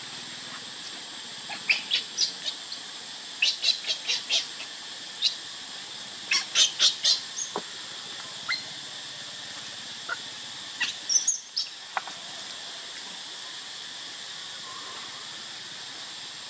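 Short, high-pitched animal chirps in several quick runs of three to five, over a steady high background hiss.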